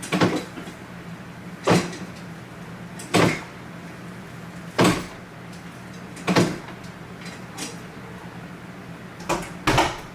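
Deliberate banging of household things: a series of sharp, loud bangs, about one every second and a half, with two in quick succession near the end.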